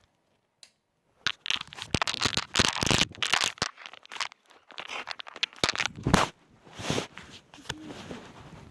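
Rustling and crinkling handling noise close to the microphone, in irregular bursts, as the recording device is picked up and moved about.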